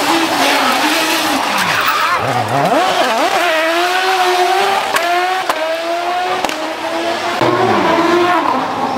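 Mitsubishi Lancer rally car's engine revving hard. The pitch dips low and climbs again, then rises in steps through the gears, with a sharp crack at each of a few shifts around the middle.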